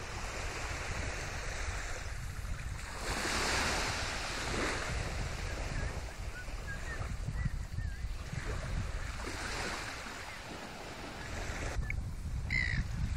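Small waves washing onto the beach, swelling and fading, with a breeze gusting on the phone's microphone as a low rumble.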